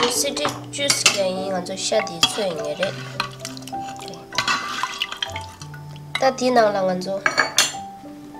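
Metal ladle clinking and scraping against an aluminium pressure cooker while meat broth is stirred, with several sharp clinks, over soft piano background music.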